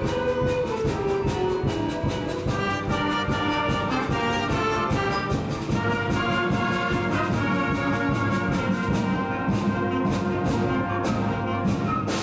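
High school concert band playing a sustained, brass-led passage with many instruments sounding together.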